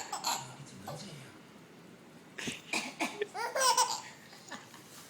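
Baby laughing, set off by someone's short coughs: a brief laugh at the start, then a couple of coughs about halfway through and the baby laughs again soon after.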